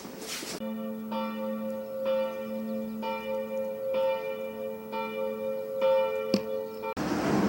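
Church bell tolling, struck about once a second with each ring hanging on under the next, cutting off abruptly near the end. A single sharp click sounds shortly before the cut.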